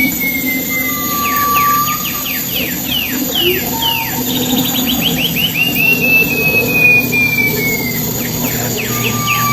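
Pipi perak songbird singing: a long, slowly falling whistle and a low short whistle, then a fast run of downward-sweeping notes, another long falling whistle, and a low whistle with sweeping notes near the end.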